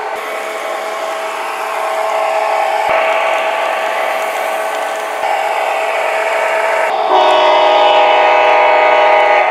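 Electric model train locomotives running on sectional track: a steady whine from the motors and gears with wheel noise. It shifts abruptly a few times, and a locomotive runs close by for the last two and a half seconds, bringing a louder, denser whine.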